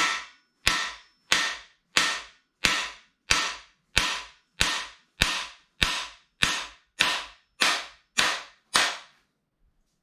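Hammer striking a cam bearing driver rod, driving a camshaft bearing out of a 350 small-block Chevy block. About fifteen sharp metallic blows come evenly, roughly three every two seconds, each ringing briefly, and they stop just before the end.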